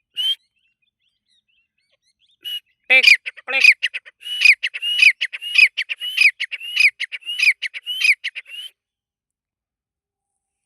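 Francolin (teetar) calling: one short call just after the start, then after a pause a loud, fast run of repeated shrill call notes, about three a second, that lasts some six seconds and stops abruptly.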